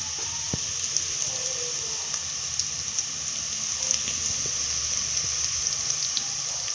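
Beef and sliced onions sizzling in oil in a pot: a steady hiss with small crackles scattered through it, the onions almost golden brown.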